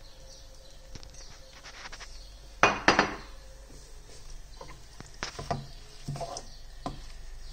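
Wooden spatula stirring cabbage leaves in a frying pan: scattered knocks and scrapes against the pan, with a louder clatter of several knocks about two and a half seconds in.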